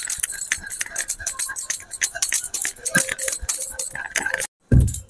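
Wooden pestle pounding red chilli powder with small onions and salt in a granite stone mortar: rapid, repeated strikes that stop abruptly about four and a half seconds in.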